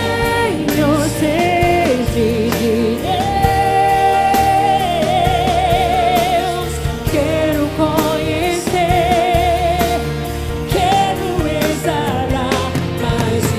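Live Portuguese-language gospel worship song: a female lead voice sings long held notes with wide vibrato over a full band accompaniment.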